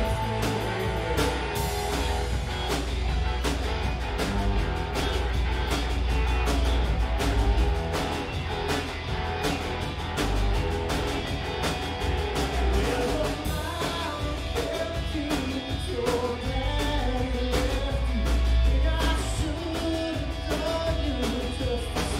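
Live rock band playing a song: drum kit keeping a steady beat under guitar, with a lead voice singing.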